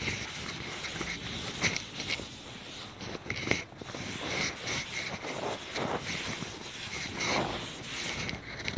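Cloth wiping across a chalkboard in repeated, irregular strokes as the board is erased.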